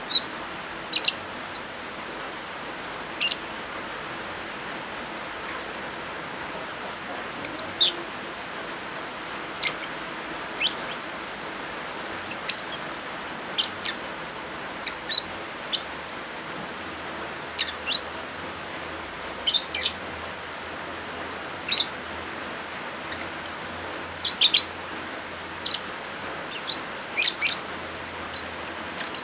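Lovebirds giving short, sharp, high chirps at irregular intervals, singly or in quick clusters, over a steady hiss of rain.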